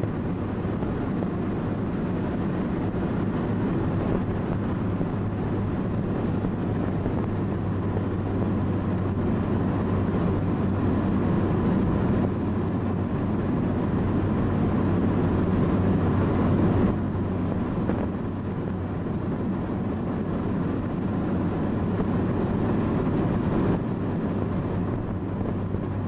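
Car engine and road noise heard from inside the cabin while driving, a steady drone with a low hum.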